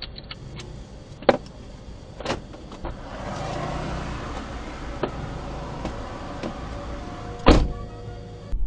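Car cabin sound in slow night traffic: a steady low rumble with a few sharp knocks, the loudest about seven and a half seconds in.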